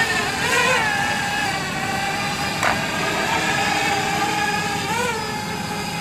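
Quadcopter drone motors and propellers whining steadily, a stack of held tones whose pitch rises and falls back twice as the throttle changes.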